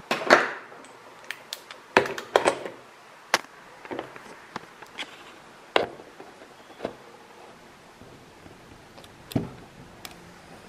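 Scattered clicks and light knocks of hands handling a plastic turntable chassis and its cueing mechanism. The loudest come right at the start and in a cluster about two seconds in.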